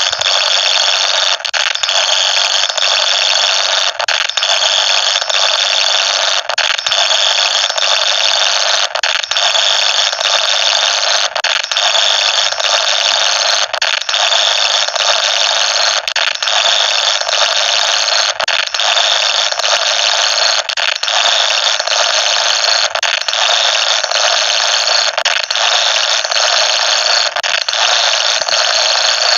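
A children's song recording sped up so far that it no longer sounds like music: a loud, steady, high-pitched screeching noise with faint held tones inside it and brief flickering dips.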